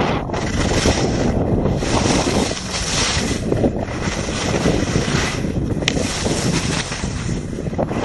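Wind rushing over the microphone of a pole-mounted camera during a downhill ski run, with the skis hissing and scraping over the snow in swells that rise and fade every second or so with the turns.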